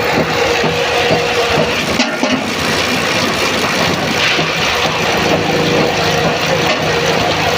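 A motor-driven machine running steadily, a dense mechanical noise with a steady hum under it.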